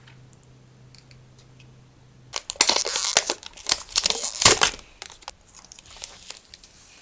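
Packaging crinkling and rustling as it is handled and opened, faint at first, then loud and dense for a couple of seconds from about two and a half seconds in, then lighter crinkles.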